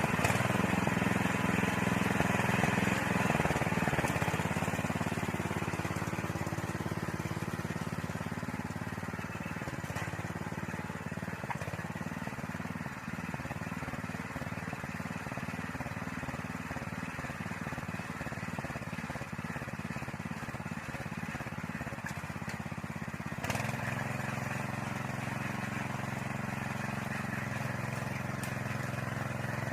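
Small engine of a walk-behind soil-tilling machine running steadily under load, easing off a few seconds in and picking up again near the end.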